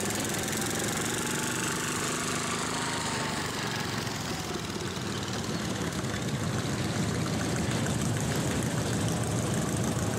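Wheel Horse garden tractor engines running at low speed as one tractor pulls away and another drives up, the low engine rumble growing slowly louder through the second half.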